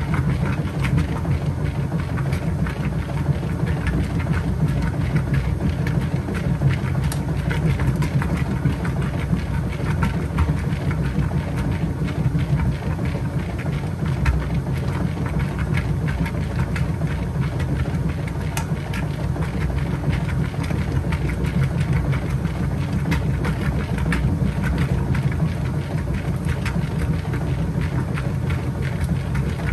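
Kenmore 80 Series top-loading washing machine agitating during the wash phase of its Heavy Duty cycle. Its motor and agitator drive make a steady low hum, with many small rapid clicks over it.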